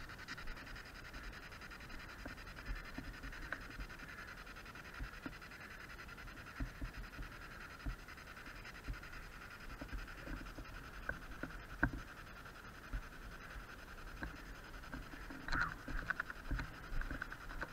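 Soft, irregular footsteps and knocks of someone moving over rough concrete and rubble with a handheld camera, over a faint steady hiss.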